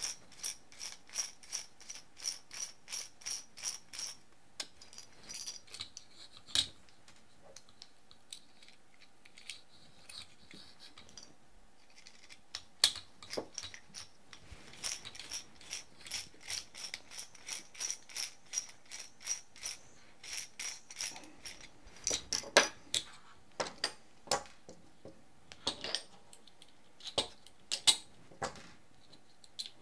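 Ratcheting screwdriver clicking in steady runs of about four clicks a second as screws are backed out of a quadcopter landing-gear frame. Near the end come a few louder knocks of small metal parts set down on the wooden bench.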